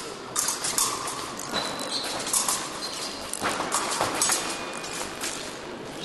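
Épée fencers' footwork on the piste: shoes tapping in quick, irregular steps, with brief rubber-sole squeaks.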